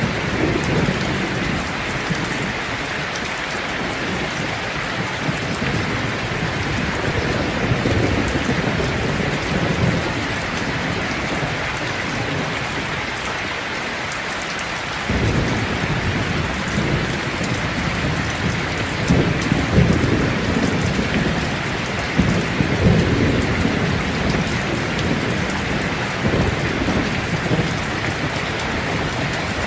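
Steady rain with low, rolling thunder. The low rumble fades just before the middle and comes back abruptly about halfway through.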